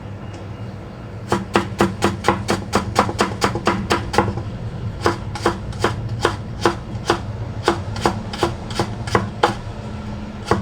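Kitchen knife rapidly slicing papaya on a cutting board, about four to five cuts a second. The cutting starts about a second in, pauses briefly near the middle, and thins out near the end.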